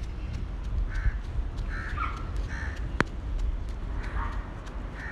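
A crow cawing over and over, harsh calls about one a second with a short pause midway. A single sharp click sounds about three seconds in, over a low rumble on the microphone.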